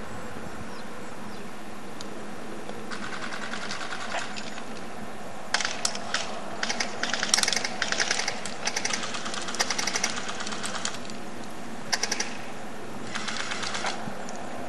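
Airsoft guns firing in bursts of rapid clicking shots: faint at first, then a run of louder bursts from about five seconds in, and two short bursts near the end, over a steady background hiss.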